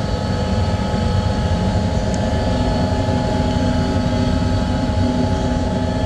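Powder coating booth running: the extraction fan and compressed-air powder gun make a loud, steady drone with several fixed steady tones over a low rumble.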